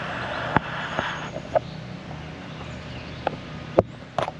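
A steady low mechanical hum, with a brief rush of noise in the first second or so and several sharp snaps and knocks scattered through.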